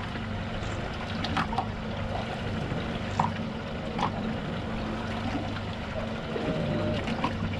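Water sloshing and trickling against a boat's hull, over a steady low hum, with a few short clicks scattered through.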